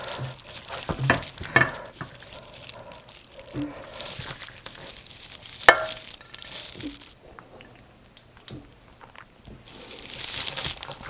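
A serving spoon scooping thick, cheesy baked ziti out of a slow cooker's crock: soft, wet scraping and squelching with scattered clicks of the spoon against the pot, the sharpest about six seconds in.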